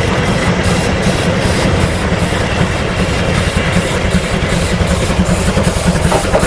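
Steady train running noise, heaviest in the low end under an even hiss, cutting in and out abruptly like an inserted sound effect.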